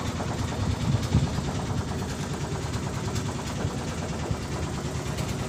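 Fishing boat's engine running steadily, its sound sitting low and even.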